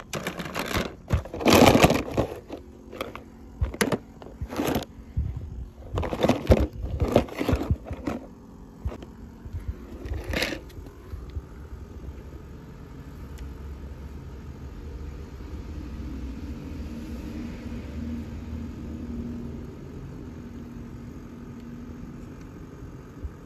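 Toy cars being handled: a quick run of crunching, clattering knocks over the first ten seconds or so, the loudest about a second and a half in, followed by a low steady hum.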